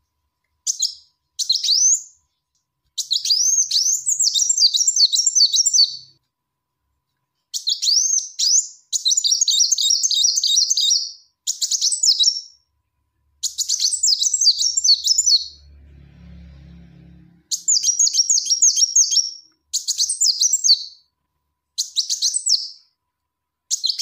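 Female kolibri wulung sunbird calling: repeated bursts of rapid, high, sweeping twitters, some short and some running two or three seconds, with silent gaps between them. A faint low hum sounds briefly about two-thirds of the way in.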